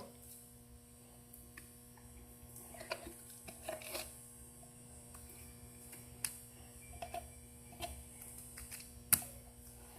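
Steady electrical hum with faint, scattered clicks and soft squishes as hands knead unmixed slime in a small bowl.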